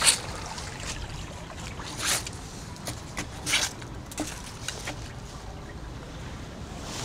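Small brook trickling over stones, a steady watery hiss, with a few short rustling clicks scattered through.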